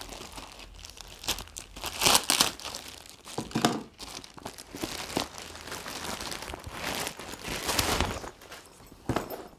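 Clear plastic bag crinkling in uneven rustles as a camera bag is pulled out of it, loudest about two seconds in.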